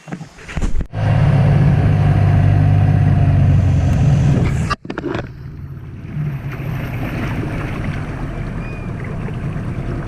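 Small boat's outboard motor catching about a second in and running steadily at speed, then throttled back about five seconds in to a lower, quieter run.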